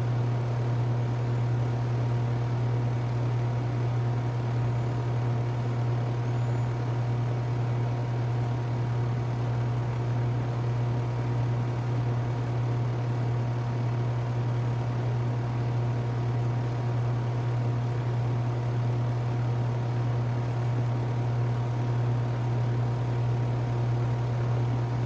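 2017 Rheem Classic RP14 2-ton heat pump running steadily in cooling mode: a strong, even low hum with a steady rush of air from the outdoor unit.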